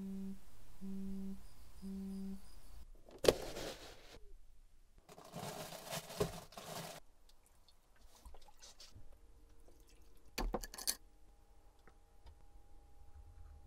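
A smartphone buzzes three times on vibrate against a wooden table. A sharp knock follows, then a longer rushing, sliding noise and a few light clicks and scrapes.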